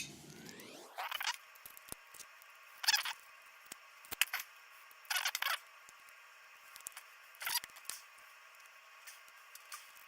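Short metallic clicks and scrapes, about five separate bursts, as a small pin-tumbler lock is handled and worked on with tools.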